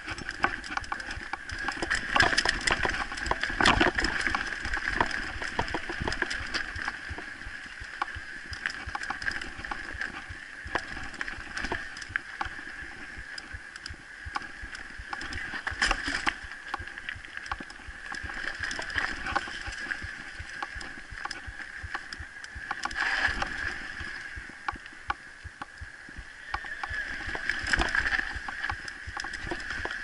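Mountain bike rolling down a rocky, rooty trail: a constant rattle and clatter of the bike, with sharp knocks as the tyres and suspension hit rocks and roots. The louder, rougher stretches come about 2 to 4 seconds in, around the middle, and again near the end.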